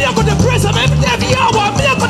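Live praise-band music in a steady upbeat rhythm: electric bass guitar and drum kit, with voices over it.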